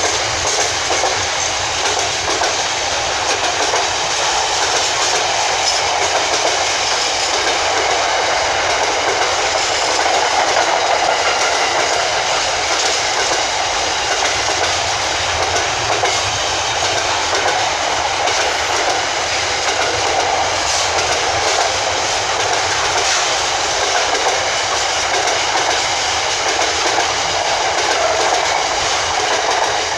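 Freight train wagons rolling past at speed, a steady loud rumble with wheels clattering over the rail joints.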